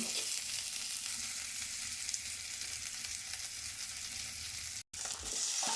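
Sliced onions sizzling in hot soybean oil in a karahi, a steady hiss. The sound cuts out for an instant about five seconds in.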